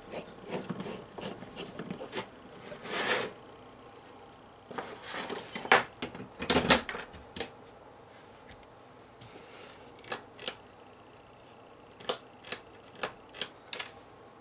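LED flood bulb's threaded base grating and scraping as it is screwed into a porcelain lampholder, then a few louder knocks and rustles. Near the end, about ten short sharp clicks in quick succession: the lampholder's pull-chain switch being worked on and off to test the water-damaged bulb.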